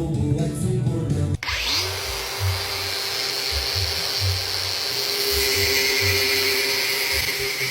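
Music cuts off about a second and a half in. An electric power tool's motor then spins up with a quickly rising whine and runs at a steady speed.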